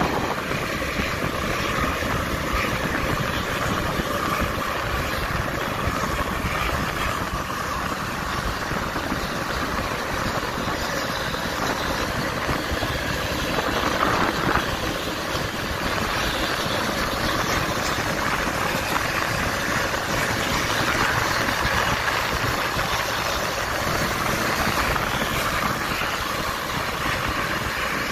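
Steady engine, tyre and wind noise of vehicles travelling along a road.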